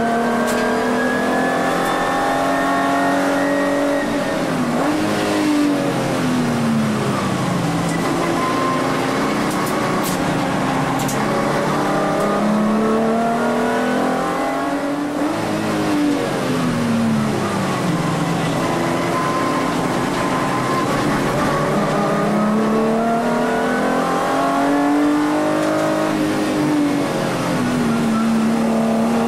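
Volkswagen Vento VR6's narrow-angle V6 engine heard from inside the cabin at race pace. Its pitch climbs slowly under acceleration and drops three times as the car slows for corners.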